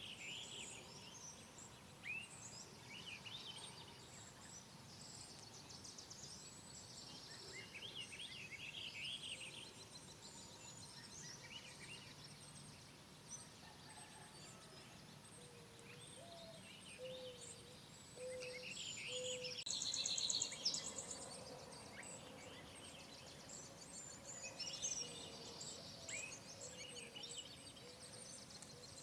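Several wild birds chirping and singing, with overlapping short calls and rapid high trills over a faint steady background hiss; the busiest, loudest trilling comes about two-thirds of the way through, and a short series of lower whistled notes sounds midway.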